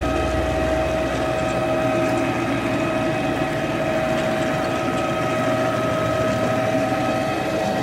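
Electric carpet-cleaning machine running steadily as it works across the carpet, its motor giving a steady whine over a rushing noise.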